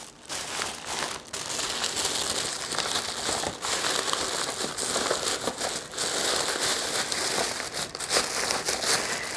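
Craft paper crinkling and rustling steadily as it is crumpled and handled, with many small crackles.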